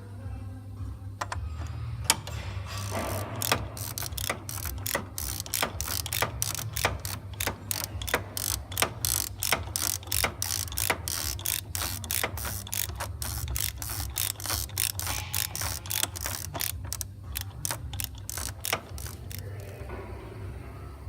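Ratchet wrench clicking steadily, about three clicks a second, over a steady low hum.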